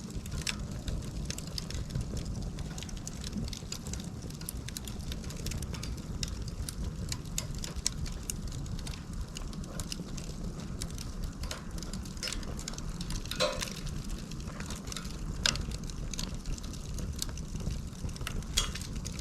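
Bundle of split dry bamboo burning as a Swedish torch: fire crackling with irregular sharp pops over a steady low rumble, the strongest pops about halfway through and a little later.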